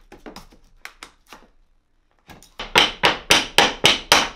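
A few light taps and clicks, then from about two and a half seconds in a steady run of sharp hammer blows, about four a second, while new hardwood floorboards are fitted into an old floor.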